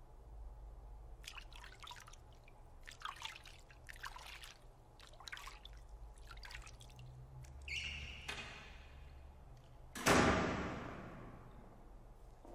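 Hands sloshing and splashing water in a shallow basin, over a low hum. About ten seconds in, a sudden loud bang rings out and dies away over about two seconds.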